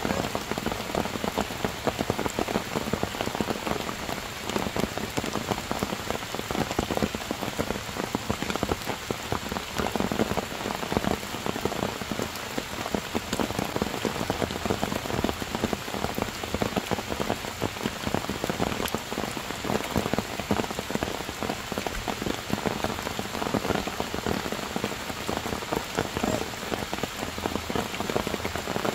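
Heavy rain falling steadily on stone slabs and forest leaves: a dense, even hiss of drops that does not let up.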